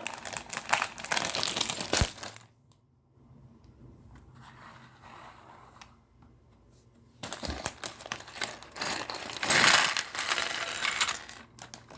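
A thin plastic Lego polybag being opened and handled with crinkling, and small plastic Lego pieces clattering out onto a hard surface, with a lull of a few seconds in the middle.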